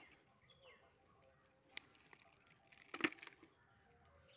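Mostly quiet, with a single sharp click a little under two seconds in and a louder knock about three seconds in. A few faint, short high chirps, like small birds, come through in between.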